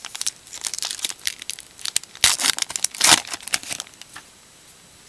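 A baseball card pack's wrapper being crinkled and torn open by hand, with the loudest rips a little past the middle. The crackling stops about a second before the end.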